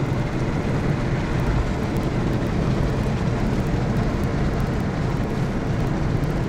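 Steady road and engine noise heard inside a car's cabin while it drives along a paved road, an even low rumble with hiss over it.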